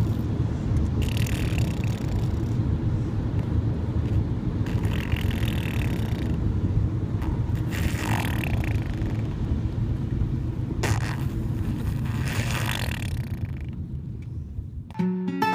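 A person snoring, a noisy breath about every three seconds over a steady low rumble.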